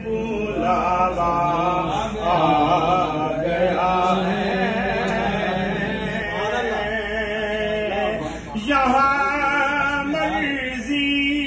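Male voices chanting zikr, the Sufi devotional chant: a wavering melodic line over a held low note, with a short break about eight seconds in.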